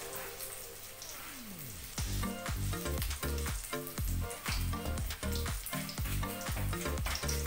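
A breaded pork cutlet deep-frying in hot oil in a wok, with a steady sizzle. About two seconds in, background music with a low thumping beat, about two beats a second, comes in over it and is the loudest sound from then on.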